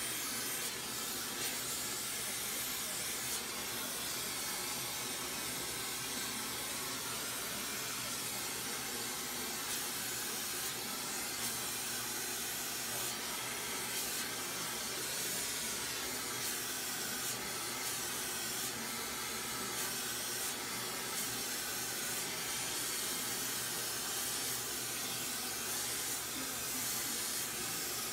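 Steady hiss of a glassworking torch flame heating glass.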